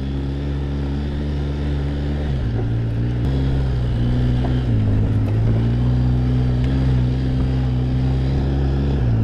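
Quad bike (ATV) engine running steadily under way, its note stepping up and down a few times as the speed changes.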